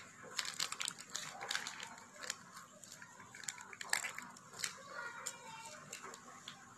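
Faint scattered clicks, crinkles and rustles of hands handling a plastic yogurt pouch over a steel bowl, about a dozen small ticks spread through the moment.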